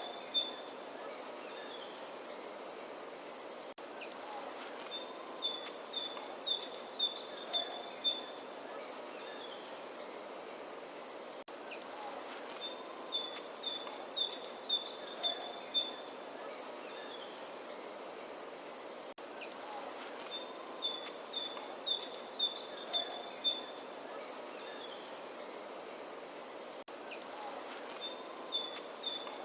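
Songbird singing the same phrase about every eight seconds: a high falling slur, then a quick run of notes alternating between two pitches, over steady background noise.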